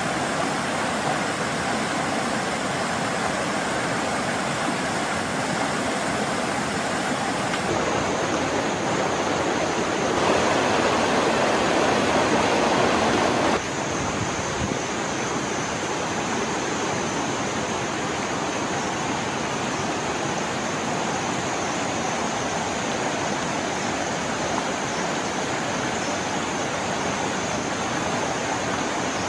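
Rushing water of a rocky mountain stream, a steady noise that jumps in level abruptly a few times and is loudest for a few seconds near the middle.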